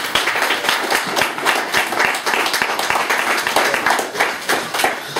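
Applause: a group of people clapping their hands, many quick, irregular claps overlapping.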